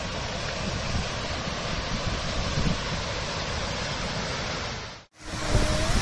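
Waterfall pouring over rocks: a steady rush of falling water, with low wind rumble on the microphone. The sound cuts out abruptly about five seconds in and the water noise comes straight back.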